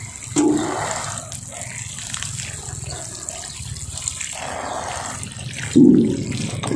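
Water pouring through a metal watering can's rose head onto potting soil in plastic pots, soaking the soil. Two brief, louder low sounds cut in, about half a second in and again near the end.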